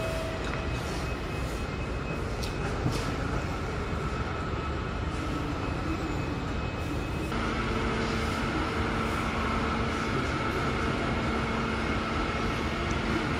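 Steady running noise of a vehicle with a constant hum, which changes to a different set of hum tones about seven seconds in.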